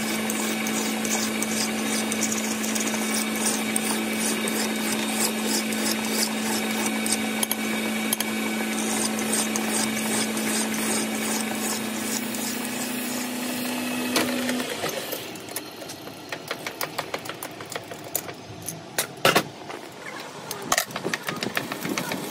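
Metal lathe running with a steady hum while a hand file rasps against the spinning steel tie rod ball stud. About fifteen seconds in the lathe shuts off, followed by scattered metal clanks and knocks, one of them loud a few seconds later.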